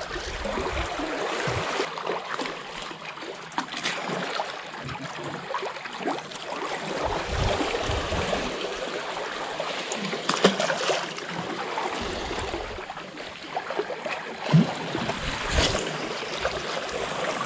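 Sea water washing and lapping against shoreline rocks, a steady rushing noise, with a few brief louder knocks or splashes.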